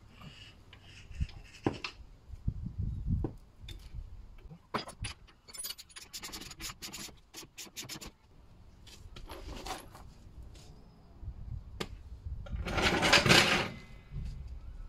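Ratchet wrench clicking in quick runs as a bolt is worked on a car's front hub, among scrapes and knocks of tools and brake parts. Near the end a louder rasping scrape lasts about a second.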